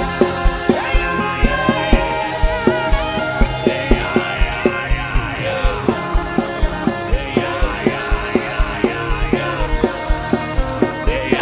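Live gospel worship music: voices singing over a band with a fast, steady drum beat.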